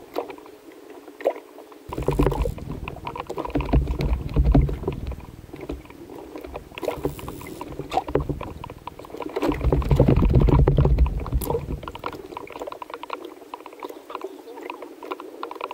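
Small waves slapping and gurgling against the side of an inflatable boat, with many small splashy clicks and two louder stretches of low rumbling, about two seconds in and again near ten seconds.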